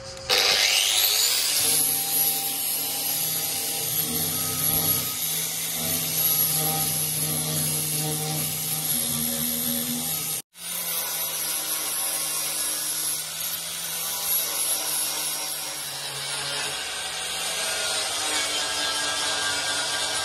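An electric power tool spins up with a rising whine and then runs under load, cutting or grinding sheet steel body panel for a van restoration. The sound drops out for a moment about halfway through, then carries on.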